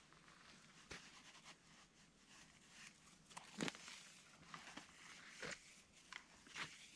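Faint rustles and a few soft, scattered knocks of a rope being pulled out and handled beside a canvas tent, the loudest knock about three and a half seconds in.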